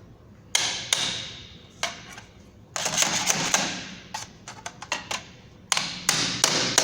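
Hammer striking a steel bar used as a punch to crimp a sheet-metal bottom onto a rim: irregular sharp blows, some in quick runs, with lighter taps between.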